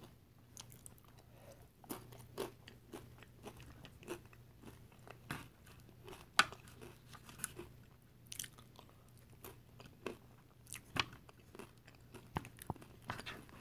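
Close-up crunching and chewing of cheese-and-salsa-loaded tortilla chips, quiet and irregular, with one sharper crunch about six seconds in.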